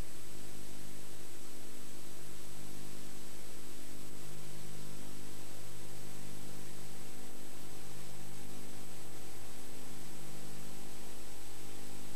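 Steady hiss from the audio track of a VHS tape over a silent warning card, with a low mains hum and a thin high whine running through it.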